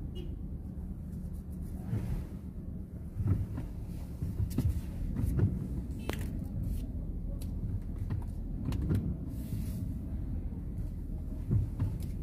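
A car's low, steady driving rumble, with a few short knocks and clicks scattered through it.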